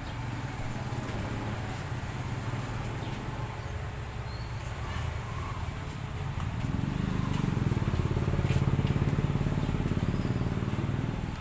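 A small motorcycle engine running, a steady low drone that grows louder about two-thirds of the way through and then cuts off suddenly.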